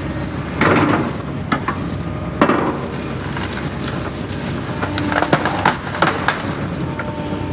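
Doosan excavator's diesel engine running steadily, heard from inside the cab, while its bucket and thumb clamp and drag a fallen log: sharp cracks and snaps of wood about half a second in, again around two and a half seconds, and a cluster of them around five to six seconds.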